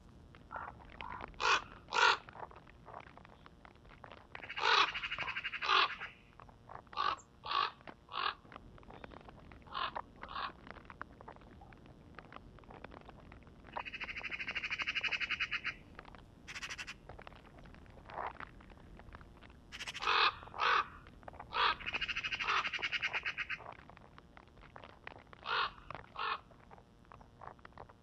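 Hooded crow calling: short harsh caws in irregular bunches, with three longer rattling calls, about five, fourteen and twenty-two seconds in.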